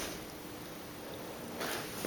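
Faint rustle of a black cloth keyboard-protector sheet being handled and carried away from a laptop, over a steady room hiss, a little louder about one and a half seconds in.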